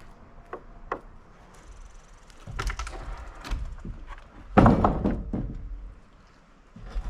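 Sawn London plane slabs being handled and set down: a series of wooden knocks and thuds, the heaviest about halfway through with a short rumble after it.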